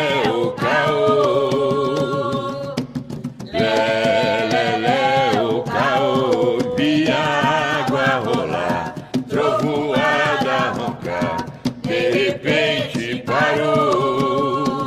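Umbanda ponto cantado sung with wavering vibrato in long held phrases, with short pauses for breath, over steady strokes of atabaque hand drums.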